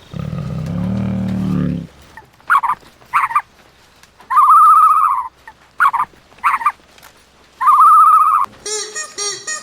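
An animal's low, rough call, then a series of high-pitched cries: four short ones and two held for about a second. Plucked-string music starts near the end.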